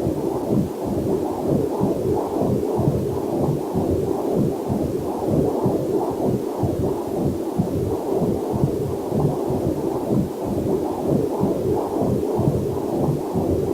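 Fetal Doppler heart monitor picking up a heartbeat as fast, even whooshing pulses, over a faint steady waterfall.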